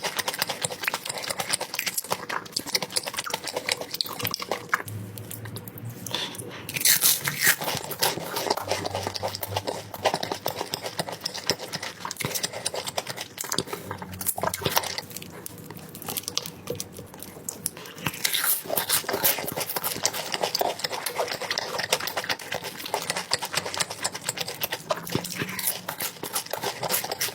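Close-miked eating: continuous chewing with small wet mouth clicks, and louder crunchy bites a few times.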